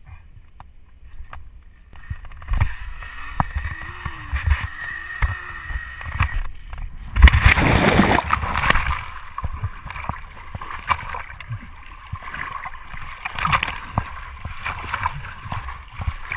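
Zip-line pulley running along a steel cable with rushing wind from about two seconds in, then a loud splash as the rider plunges into a river about seven seconds in, followed by sloshing water and splashing swimming strokes.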